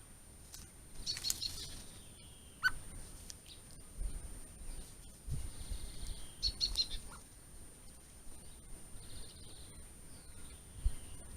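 Small garden birds chirping: two quick clusters of short high chirps, with a few single chirps in between. A couple of dull low knocks are heard midway and near the end.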